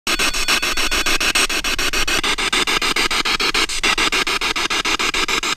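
Ghost-hunting spirit box, a radio sweeping rapidly through stations, hissing with static that is chopped into even bursts about ten times a second as it scans.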